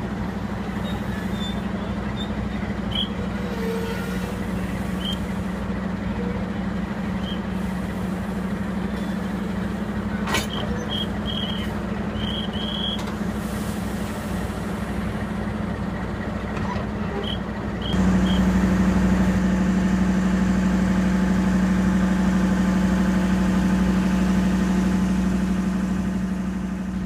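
Diesel-electric locomotive (an Indonesian CC 206) running with a steady low hum, with a single sharp knock about ten seconds in. The engine gets clearly louder at about 18 seconds and eases off near the end.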